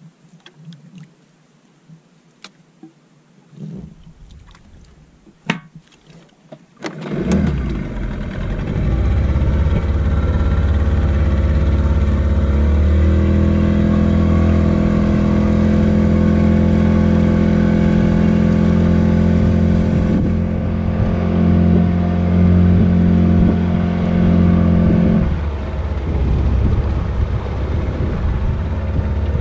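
Small fishing boat's engine starting after a few sharp knocks, then running steadily. The revs rise about twelve seconds in and hold steady as the boat gets under way, then ease back near the end.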